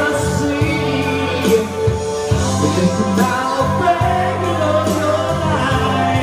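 A man singing karaoke into a microphone over a backing track.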